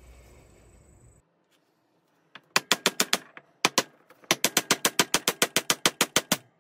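Hammer tapping rapidly through a wooden block on the end of a hydraulic steering cylinder held in a vise, about seven sharp taps a second with one short pause, to drive the reassembled part home.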